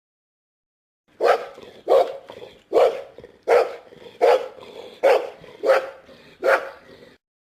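A dog barking in a steady series of eight barks, about one every three-quarters of a second, starting about a second in and stopping shortly before the end.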